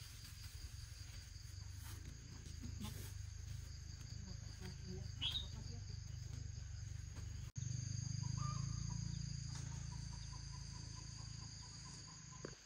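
Outdoor ambience of insects trilling steadily in two high-pitched tones, over a low rumble, with a few faint short chirps.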